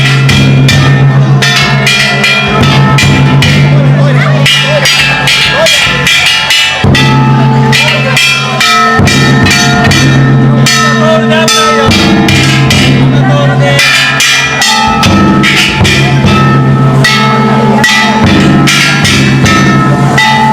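Ishidori-bayashi festival music: the float's big taiko drum and bronze kane gongs struck hard and fast, a loud, dense clanging over ringing tones.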